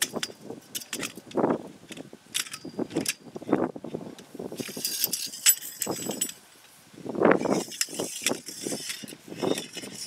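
Light metal chain and steel tripod parts jangling and clinking as they are handled, in scattered clinks with two longer spells of jingling midway and toward the end. Gusts of wind buffet the microphone throughout.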